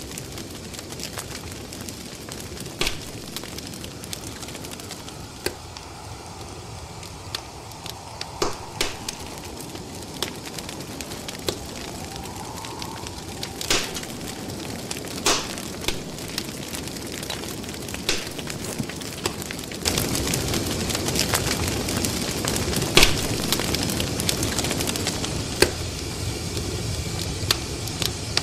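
Crackling wood fire: a steady hiss with irregular sharp pops, growing louder about twenty seconds in.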